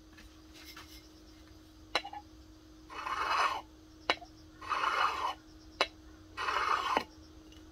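Steel knife blade stroked along the side of a glass bottle to hone its edge: three scraping strokes, each set off by a sharp tick as the blade meets the glass.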